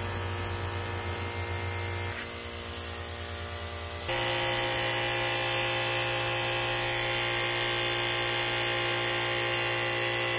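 Electric-motor-driven high-pressure misting pump running steadily with a hum, over the hiss of fog nozzles spraying. About four seconds in, the hum gets louder and its tone changes, then holds steady.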